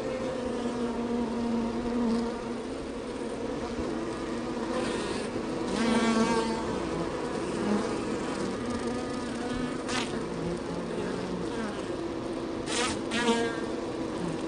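Many bees buzzing around a beehive in a steady, layered hum. Single bees fly close past several times, louder and higher for a moment, about six, ten and thirteen seconds in.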